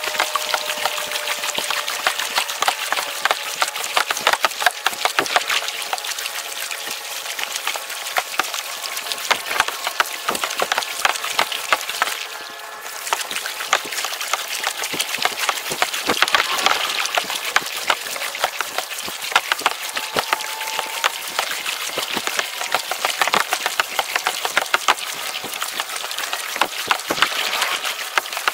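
Dense, steady crackle of water splashing and trickling along a moving kayak's hull and off the paddle, with a brief lull about twelve seconds in.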